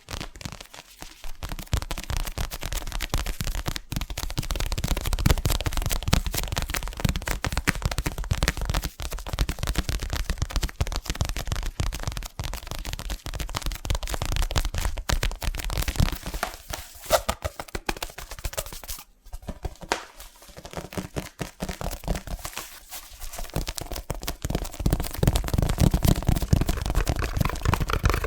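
Fast, aggressive fingertip tapping on an object, a dense run of many taps a second with a low knock to each, broken by a few short pauses.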